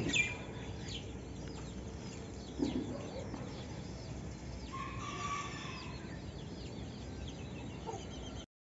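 A flock of young chickens clucking and chirping, with many short high chirps throughout and a longer call about five seconds in.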